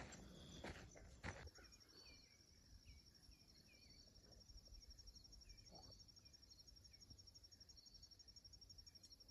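Three footsteps on a sandy trail in the first second and a half. After that comes a faint, steady, high-pitched pulsing trill of insects, typical of crickets, with a few faint short chirps.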